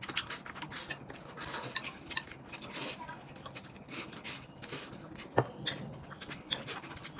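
Close-up eating sounds: chopsticks clicking against porcelain plates while noodles are slurped and chewed, with one sharp knock of chopsticks on a plate about five seconds in.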